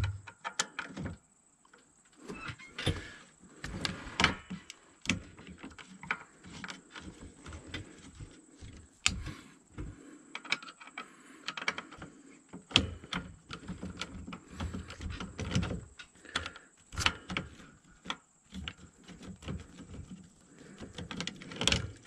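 Irregular small clicks, taps and scrapes of a screwdriver and hands working the screws and plastic housing of a Freightliner turn signal switch on the steering column.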